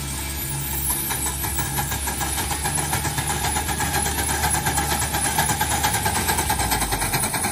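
Miniature coal-burning live steam locomotive under way, chuffing in a quick, even beat.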